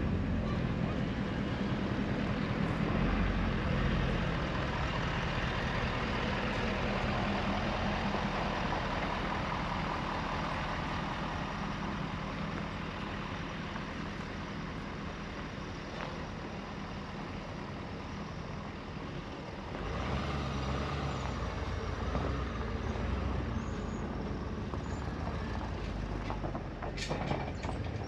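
A vehicle's engine running steadily while it turns a trailer around, growing louder about twenty seconds in. A few sharp clicks near the end.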